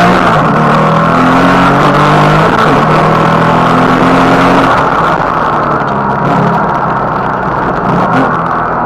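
Porsche Cayman S flat-six engine heard from inside the cabin, revving up and down under hard driving through a cone course. About halfway through the pitch climbs steadily under acceleration, then the engine note drops back and fades under road and wind noise as the driver lifts off.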